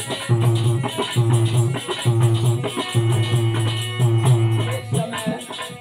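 Instrumental interlude of Alha folk music: harmonium with a repeating beat about twice a second and rattling percussion. Near the end the beat stops and the harmonium's held notes carry on.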